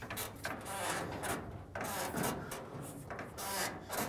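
Shuffling footsteps, sneakers scuffing on concrete, with rustling, in uneven scrapes about twice a second.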